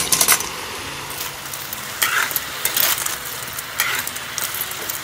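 Pumpkin chunks tumbling out of a metal bowl into a metal kadhai of frying river snails, with a burst of clinks as they land. A metal spoon then scrapes and stirs the pan about three times over a low sizzle.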